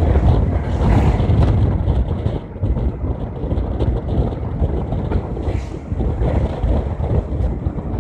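Low rumble of a bus travelling at speed on a highway, with wind buffeting the phone's microphone at the window and the road noise of passing traffic.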